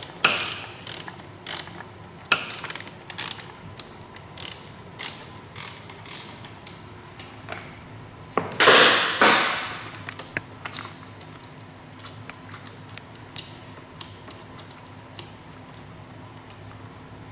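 Hand ratchet on a 3/8-inch drive socket and long extension clicking about twice a second as it works an 11 mm fastener on the stock steering damper. About eight seconds in there is a louder rasp lasting roughly a second and a half, then only a few faint clicks.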